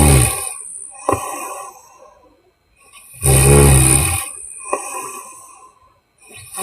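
A woman snoring loudly: deep rattling snores about three seconds apart, one tailing off just after the start, one about three seconds in and another starting near the end. Each snore trails off into a fading, breathy exhale with a small click at its start.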